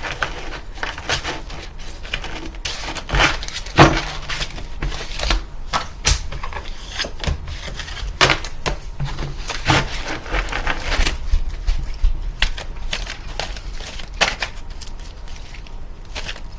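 A deck of cards being shuffled by hand: a steady run of quick, irregular clicks and flutters from the cards.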